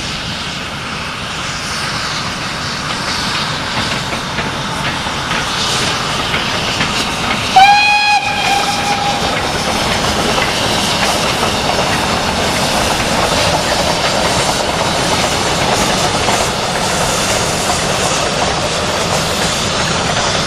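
Steam-hauled goods train running past, its noise slowly growing louder; about a third of the way in the steam locomotive gives one short whistle blast.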